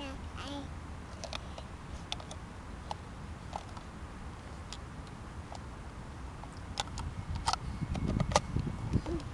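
Plastic stacking cups clicking and tapping now and then as a toddler fits them together, over a low rumble of wind on the microphone that grows louder near the end.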